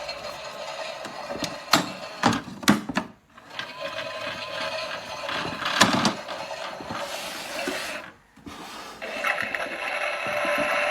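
Theo Klein Miele toy washing machine running: a steady mechanical hum from its small drum motor, with a few sharp clicks about two and six seconds in. From about nine seconds in the whirring gets steadier and louder.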